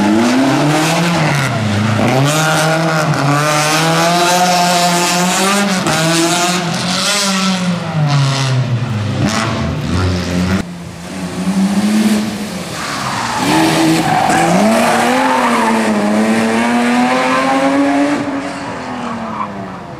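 Rally cars being driven hard past on a tarmac stage, engines revving high with the pitch climbing and dropping at each gear change and lift. The sound breaks off abruptly about ten seconds in and another car is heard accelerating the same way.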